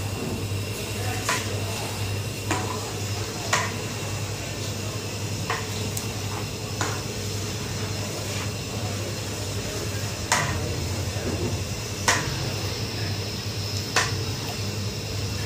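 A long metal ladle stirs chicken karahi in a large metal pot, knocking and scraping against the pot's side about every second or two, over a steady low hum. The chicken is being browned in ghee, cream and yogurt.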